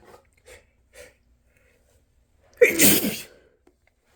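A man's single loud sneeze about two and a half seconds in, after three faint short breaths as it builds.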